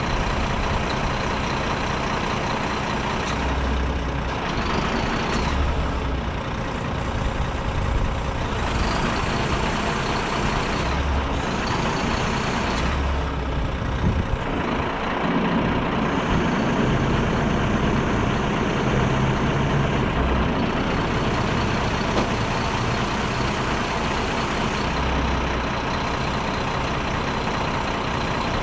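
Renault Kerax 380 DXi tipper truck's diesel engine running as it drives the hydraulics of the Palfinger PK16001-K knuckle-boom crane while the boom is folded in. The sound changes several times as the crane's sections are worked.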